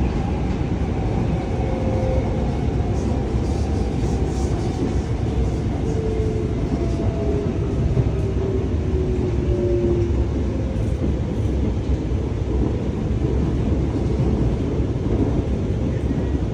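Interior of an Alstom Movia R151 metro car running at speed: a steady rumble of wheels and running gear on the rails. A faint whine slides down in pitch over roughly the first ten seconds.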